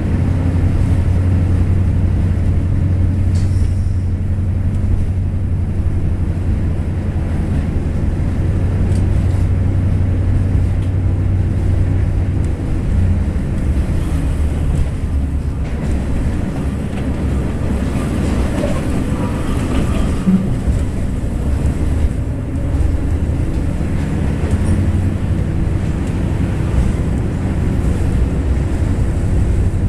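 Interior running sound of a KiHa 28 diesel railcar under way: its DMH17H horizontal eight-cylinder diesel engine drones steadily over wheel and rail noise. The low drone eases a little about 13 seconds in.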